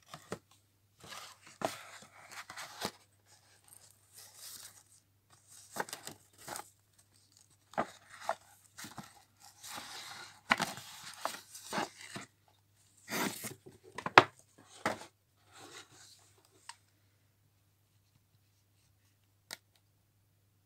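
Paper gift bag and its wrapping rustling and crinkling as hands rummage inside it, in irregular bursts with sharp crackles and clicks. The rustling stops a few seconds before the end, leaving one lone click, with a faint steady low hum underneath.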